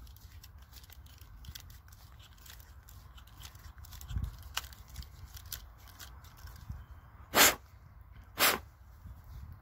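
Swiss Army knife awl being twisted through a hole in a green wooden stick to ream it wider: faint, irregular scraping and ticking of steel on wood. Near the end come two short, louder hissing sounds about a second apart.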